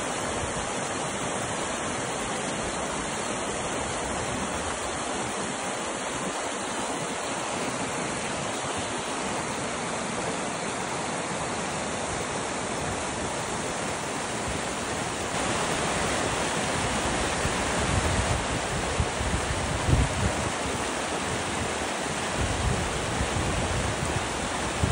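Water rushing steadily over a low stone weir at a small pond's outlet, a little louder after the midpoint, with low gusts of wind buffeting the microphone in the last several seconds.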